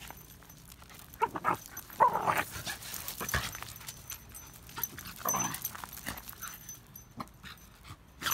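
Shiba Inu dog vocalizing in a few short calls, about a second in, at two seconds and again around five seconds in.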